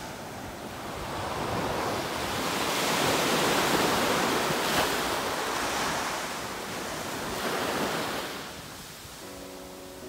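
Small waves breaking and washing up a sandy beach, the surf swelling to its loudest about three to five seconds in, surging again just before the end and then easing off.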